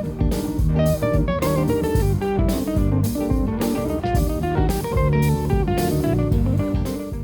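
Background music: guitar-led instrumental with a steady beat and bass.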